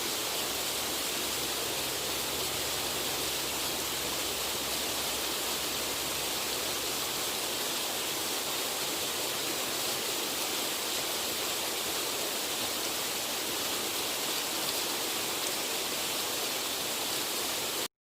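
Waterfall rushing over stones, a steady even hiss of falling water that cuts off suddenly at the very end.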